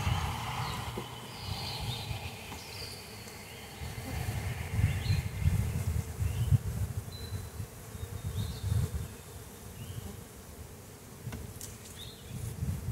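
Honeybees buzzing over an open hive, the hum swelling and fading as bees fly close. In the first few seconds a hive tool scrapes along the wooden frame edges.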